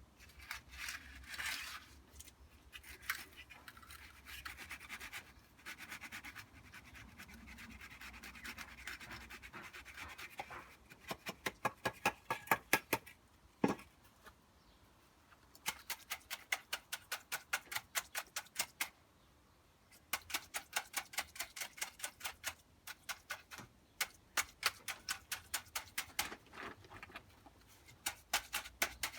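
Concrete formwork (shutter) being tapped in quick, even strokes, about four or five a second, in runs of a few seconds with short pauses. This is done to settle fresh concrete against the form and drive out air voids and honeycombing. Before the tapping, about ten seconds of scraping.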